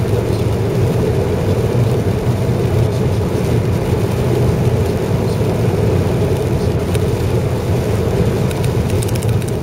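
Steady road noise of a car driving on a wet highway, heard from inside the cabin: an even low hum of engine and tyres with the hiss of the wet road surface.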